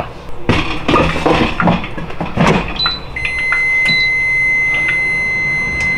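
An air fryer basket is slid back into its housing with clattering knocks. About three seconds in come two short electronic beeps, then a steady high electronic timer tone that holds for about three seconds over a low fan hum.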